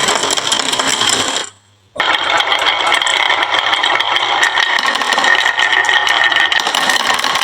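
Many marbles rolling and clattering down a marble run track, a dense continuous rattle of small clicks. The sound drops out for about half a second roughly a second and a half in, then resumes.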